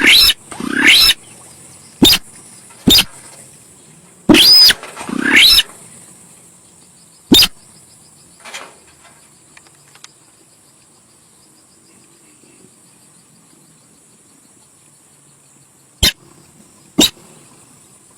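Loud, harsh calls of the sintar sawah paddy-field bird, each a sharp upward sweep in pitch, repeated several times over the first seven or so seconds, then a long pause and two short calls near the end. This is a lure-call recording, played loud enough to sound over-driven.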